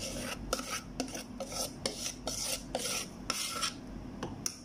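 A spoon scraping cake batter out of a mixing bowl into a cake pan: quick rasping strokes, about three a second, that stop near the end.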